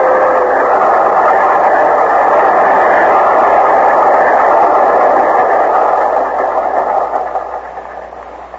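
Radio-drama sound effect of a train running, a steady rushing noise that fades away over the last second or two.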